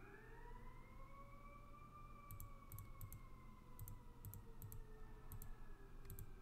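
Faint clicking of a computer mouse: about eight quick double ticks, starting a couple of seconds in. Behind it is a faint wailing tone that rises just before and then slowly sinks.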